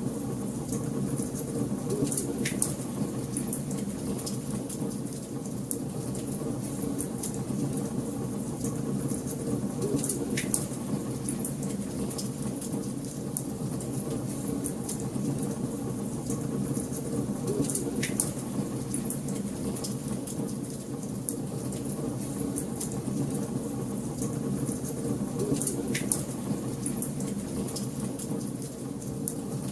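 Wood fire in a fireplace crackling: many small sharp snaps and a few louder pops, roughly every eight seconds, over a low steady rumble of burning.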